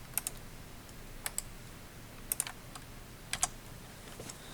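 Computer keyboard keys pressed in short clusters, mostly two clicks at a time, about once a second, four times.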